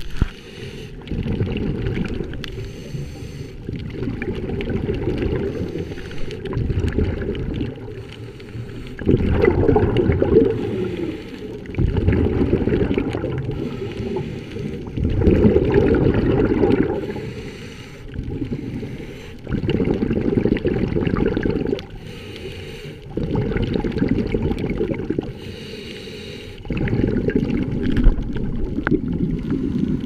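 Scuba regulator exhaust bubbles heard underwater: a muffled, rumbling gurgle in bursts of about two seconds, one every three to four seconds, each burst a diver breathing out, with quieter gaps while breathing in.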